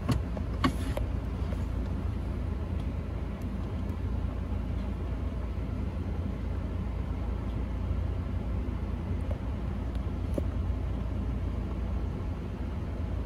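A 2021 Ford Ranger's turbocharged 2.3-litre four-cylinder idling, heard from inside the cab as a steady low rumble. A couple of light clicks come in the first second.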